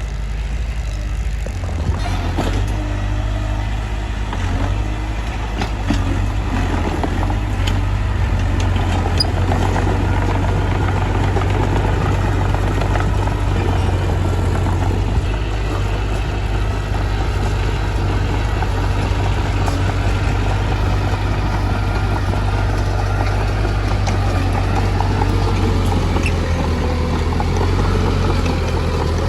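Mitsubishi bulldozer's diesel engine running steadily with a deep low rumble, with a few short sharp clicks and cracks over it.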